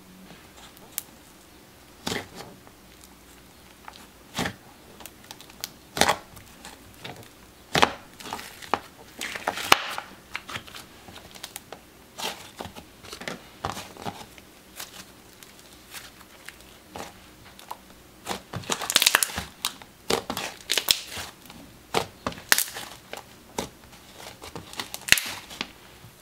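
Slime being squeezed and pressed by hand, giving irregular crackling pops and squelches. Some come singly, others in quick busy clusters about a third of the way in and again about two-thirds in.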